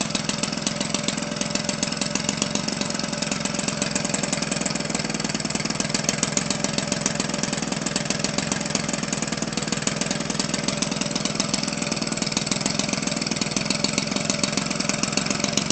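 Homelite 25cc single-cylinder two-stroke engine, converted for RC aircraft and fitted with a gutted muffler, running steadily while spinning a propeller, with a rapid, even firing note.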